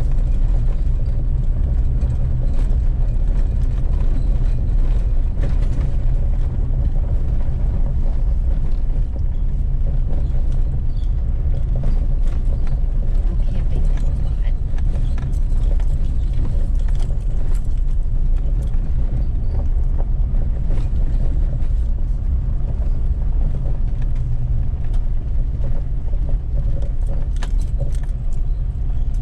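Pickup truck driving on a gravel road: a steady low rumble of engine and tyres, with scattered clicks and rattles.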